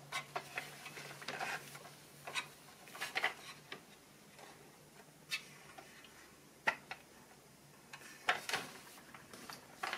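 Scattered light plastic clicks and taps, a dozen or so spread unevenly, from hands handling a 1:18 scale toy Humvee with its rear boot lid open.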